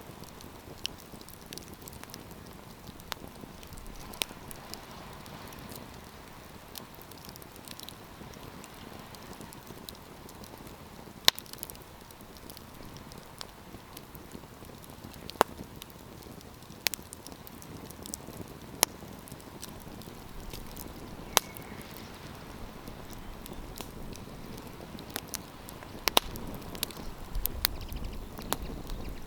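Wood campfire burning with a steady hiss and irregular sharp crackles and pops, more of them near the end, where a low rumble also rises.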